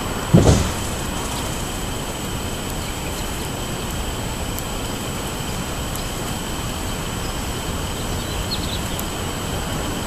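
Steady wind noise on the microphone, with a brief low thump about half a second in. A few faint high chirps come near the end.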